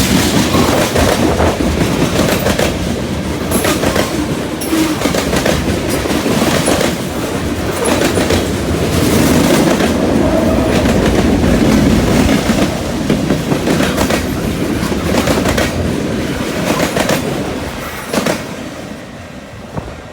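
Freight cars of a CN freight train rolling past, steel wheels clacking over rail joints in repeated knocks, with a steady low rumble; the sound fades over the last few seconds as the train moves away.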